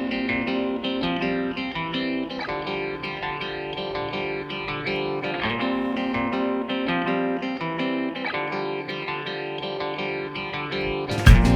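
Background music led by a plucked guitar playing a steady melodic line. Just before the end a louder, fuller section comes in with heavy bass and sharp beats.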